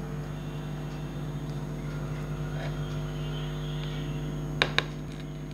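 A steady low hum throughout, with two sharp clicks close together near the end as the plate is set down on the table.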